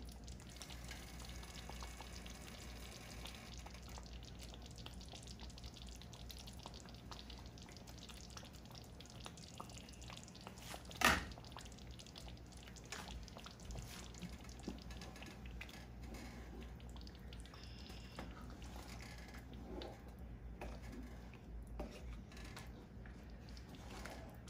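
Thick Ethiopian wot stew simmering gently in a pot: faint, steady bubbling with tiny pops, and one sharp knock about eleven seconds in.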